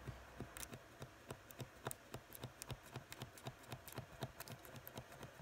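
Paint marker's valve nib pressed up and down against paper, giving rapid faint clicks, several a second: the marker is being primed until the paint starts to flow.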